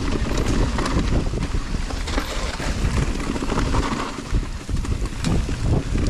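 Wind buffeting the microphone of a mountain bike rider on a rocky descent, with scattered clicks and rattles from the bike running over stones.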